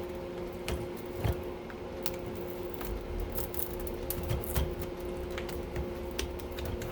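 Scattered light clicks and scrapes of hand tools working screws out of a circuit breaker, over a steady hum.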